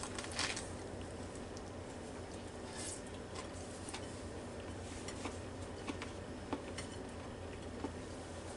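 Faint scattered clicks and light taps as a burger is handled on a ceramic plate, over a steady low room hum.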